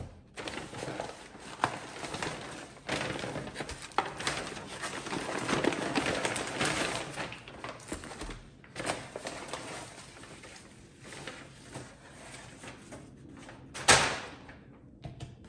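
Paper takeout bag rustling and crinkling as food containers are lifted out of it, with scattered light knocks of plastic containers set on a table and one sharper knock near the end.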